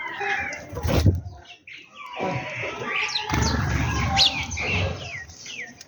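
Sparrows chirping: many short, quick chirps overlapping, thickest in the second half. There is a thump about a second in, and a low rumbling noise underneath.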